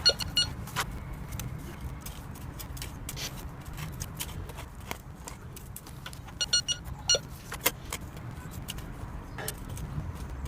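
Prestige N87KA metal detector giving short high beeps in two clusters, at the start and about six and a half seconds in, among many sharp clicks and clinks from handling and digging, over a low rumble. The owner finds this detector beeps at almost anything, even where nothing is buried.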